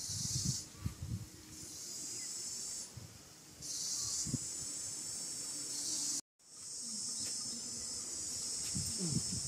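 Chorus of insects buzzing shrilly, swelling and dropping away in waves of a second or two, then running steadily after a brief cut about six seconds in. A few low thuds come near the start.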